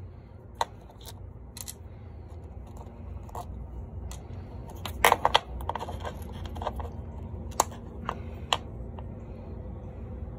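Small metal screws and fuel-pump parts clicking and clinking against a steel diamond-plate surface as a small engine's diaphragm fuel pump is unscrewed and its cover lifted apart, with a cluster of louder clinks about five seconds in. A low steady hum runs underneath.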